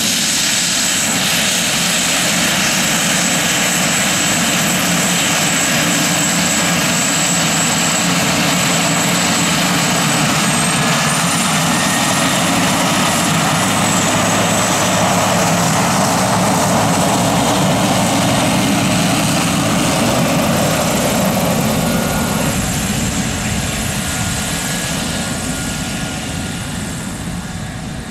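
Pilatus PC-12 NGX single-engine turboprop (Pratt & Whitney PT6E) taxiing past: steady propeller and turbine noise with a high whine that rises, then drops in pitch about halfway through as the plane goes by. It fades over the last few seconds as the aircraft moves away.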